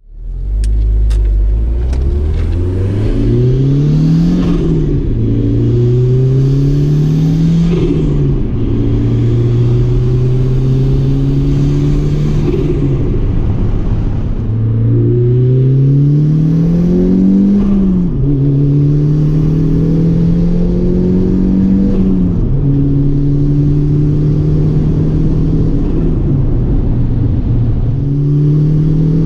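Turbocharged 20-valve engine of a repowered Porsche Boxster pulling under part throttle and low boost, its pitch rising steadily through several pulls and dropping suddenly between them, with a whooshing hiss at some of the drops.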